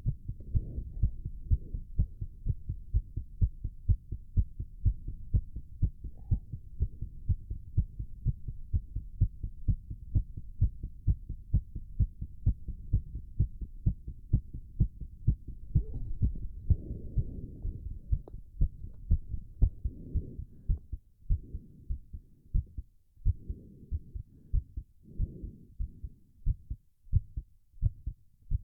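A man's heartbeat racing from the exertion of holding a plank: fast, regular low beats. Heavy breathing swells through it in waves, strongest about two-thirds of the way in.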